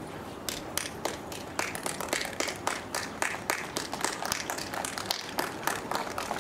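A few people clapping by hand: scattered, sharp, uneven claps, several a second, starting about half a second in.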